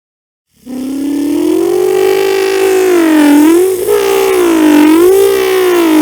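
A man's voice imitating a wailing siren: it starts suddenly about half a second in, climbs in pitch, then swoops slowly down and up about every second and a half.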